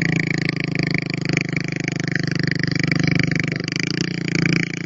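Small motorcycle engine running steadily at high revs while its rear wheel spins in loose sand: the bike is stuck.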